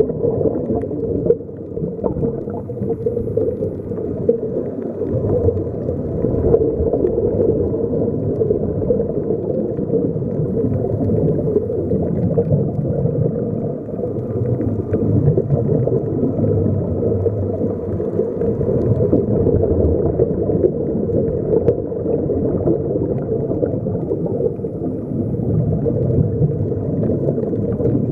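Underwater sound picked up by a submerged camera: a steady, muffled rumble with bubbling from air escaping the sea-walker diving helmets.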